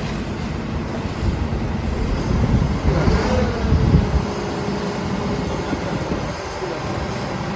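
Heavy construction machinery running with a steady low rumble, and a brief squeal of metal about three seconds in.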